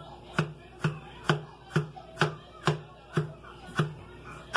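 Kitchen knife chopping a tomato on a plastic cutting board: a steady series of sharp knocks, about two a second.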